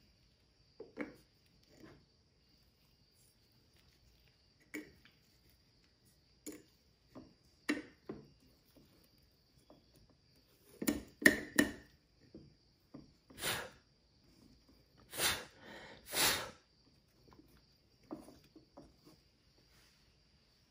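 Scattered light taps, clicks and rustles of gloved hands setting small resin prints onto a UV curing box's plastic turntable, with a faint steady high whine underneath.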